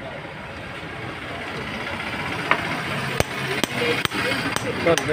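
Hammer striking metal on a dismantled R190 single-cylinder diesel engine: about seven sharp knocks in quick, uneven succession, beginning about halfway through.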